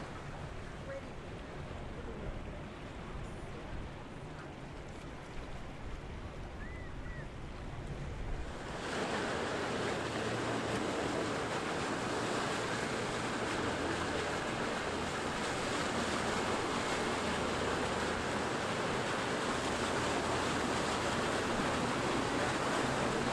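Wind and waves washing, then about nine seconds in a sudden step up to a louder, steady rush of water from a sportfishing yacht's bow wake and hull spray as it runs close by, with a low engine drone underneath.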